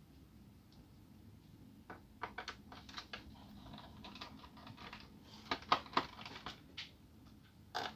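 Scattered light clicks and taps of a screwdriver and small screws against the bottom case of an ASUS K53SD laptop as the case screws are taken out. The clicks begin about two seconds in and come in small clusters, loudest a little past the middle.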